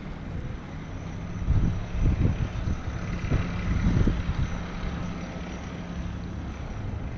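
Steady low rumble of a motor vehicle's engine, with irregular gusts of wind buffeting the microphone.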